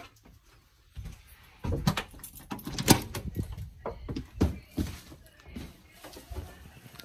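Irregular knocks, bumps and rubbing from a handheld phone camera being handled and carried, with a short near-silent gap about half a second in.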